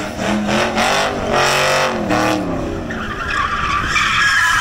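Car doing donuts: the engine revs with its pitch rising and falling, then the tires squeal loudly from about three seconds in as the wheels spin and slide on the pavement.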